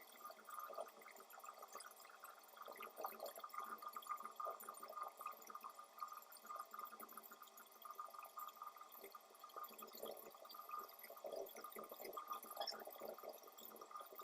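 Faint scratching of a drawing tool on paper, in short irregular strokes, as a picture is drawn or coloured in.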